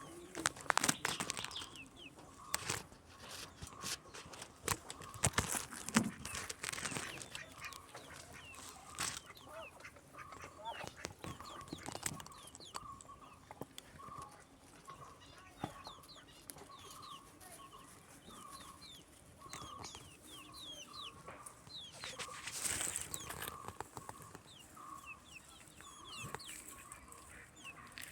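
Chickens clucking and calling, with a run of short repeated clucks through the second half and many quick, high chirps and short clicks scattered throughout.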